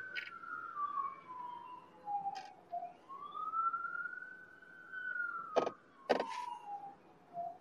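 A siren wailing, its pitch sliding slowly down, back up and down again, with two sharp clicks half a second apart near the end.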